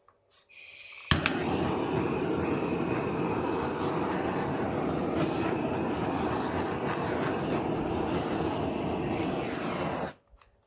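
Handheld butane torch: gas hisses, the igniter clicks about a second in, and the flame runs steadily for about nine seconds before shutting off suddenly. It is being passed over freshly poured epoxy resin to pop surface bubbles.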